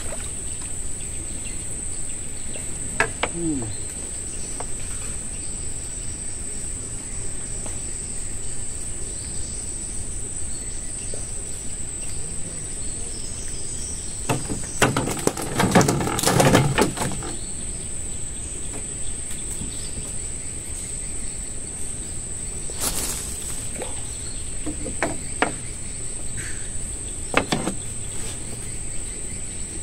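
Steady high-pitched drone of insects, with scattered knocks and handling noises from fishing gear in the wooden boat, a cluster of louder ones about halfway through.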